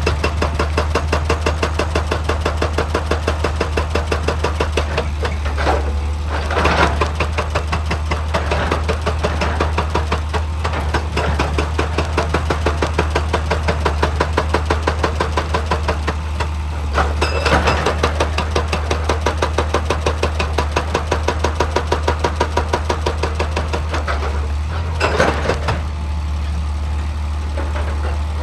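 Excavator diesel engine running steadily with a fast, even clatter, with louder bursts of noise about three times.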